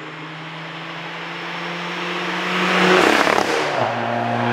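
Stage 3 tuned 2004 Audi A4 B6 1.9 TDI four-cylinder turbodiesel, with a 3-inch turboback exhaust, approaching at speed and passing close by. Its engine note grows steadily louder, peaks about three seconds in, then drops in pitch as the car goes past.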